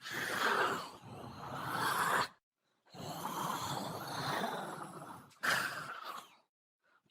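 Zombie sound effect: rasping, breathy vocal groans and growls, several drawn-out ones each lasting one to two and a half seconds, broken by short gaps of dead silence.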